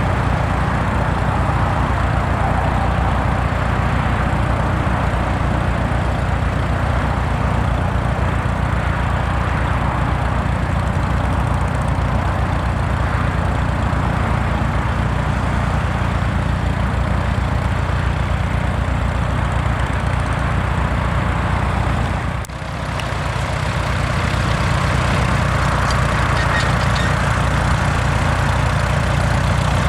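Tractor engine running steadily at an even speed, with a brief drop in level about three-quarters of the way through.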